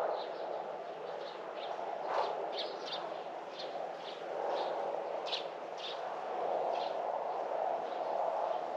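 A small bird chirping in short, high notes, about two a second, stopping about seven seconds in, over a steady rushing background noise.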